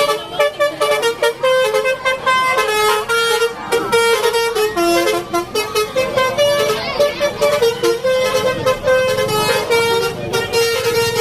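A bus's Basuri telolet horn, a multi-tone musical horn, playing a rapid tune of stepped notes that jump between pitches every few tenths of a second.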